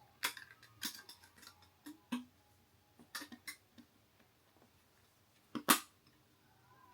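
Scattered clicks and taps of console parts being handled as the Xbox Series S heatsink retention bracket is fitted and clamped onto the board, with the loudest sharp click near the end.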